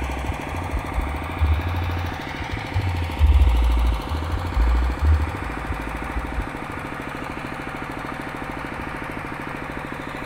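Small engine idling close by with a rapid, even putter. Wind buffets the microphone with low rumbles during the first half.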